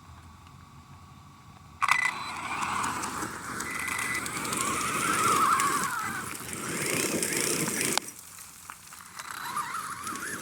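Battery-powered radio-controlled car driving hard: its electric motor whine rises and falls in pitch over tyre and gravel noise. It starts suddenly about two seconds in, drops off briefly near the end, then picks up again.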